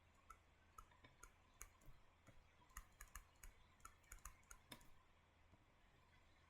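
Faint, irregular clicking, roughly a dozen or more light clicks that stop about five seconds in.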